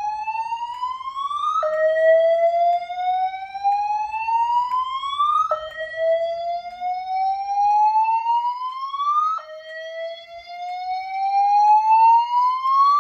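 EST3 whoop alert tone from EST Genesis fire alarm speaker strobes, the evacuation tone of a voice evacuation system. It sweeps steadily upward in pitch over about four seconds, drops back sharply and starts again, three times over.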